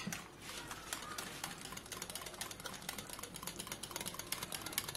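Small wire whisk beating thick curd in a ceramic bowl, its wires clicking rapidly and unevenly against the bowl as the curd is whipped smooth.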